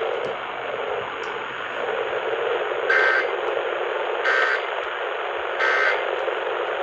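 Steady AM radio hiss, then, about three seconds in, three short bursts of Emergency Alert System end-of-message data tones (a warbling two-tone digital squawk), a little over a second apart, signalling that the alert is over.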